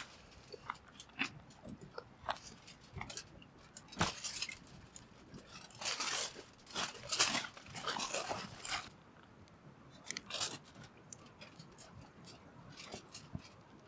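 Aluminium foil crinkling and rustling in irregular bursts as it is handled and folded, with small clicks in between.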